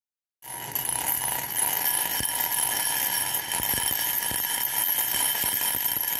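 Channel logo intro sound effect: several steady high ringing tones over a hiss, with a few soft clicks, starting about half a second in.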